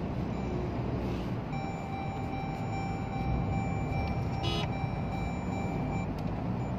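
Road noise inside a moving car: a steady low rumble of engine and tyres. A steady high tone sounds from about a second and a half in until about six seconds in, and a very brief sharp sound cuts in about four and a half seconds in.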